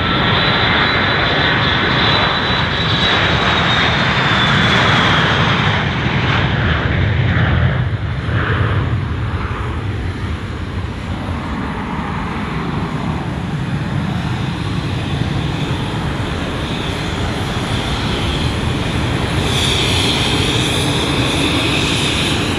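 Dassault Falcon 7X's three Pratt & Whitney Canada PW307A turbofans at take-off power: a loud, steady jet roar with a high whine, as the trijet rolls, lifts off and climbs away. The whine sinks a little in pitch a few seconds in and grows strong again near the end.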